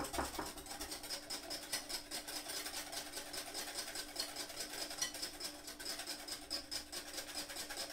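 Wire balloon whisk beating double cream by hand in a glass bowl: a fast, even rhythm of wire strokes scraping and clicking against the glass, which stops near the end.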